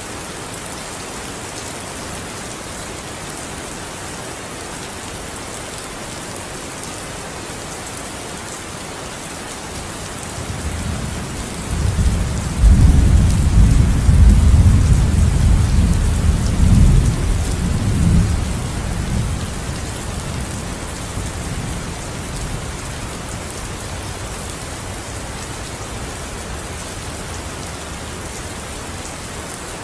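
Steady, heavy rain falling, with a long roll of thunder that swells about a third of the way in, rumbles loudest for several seconds in the middle, then dies away.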